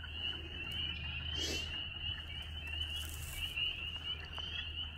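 A dense spring breeding chorus of frogs in a snowmelt-flooded woodland pool: many overlapping high-pitched trilling calls running together without a break.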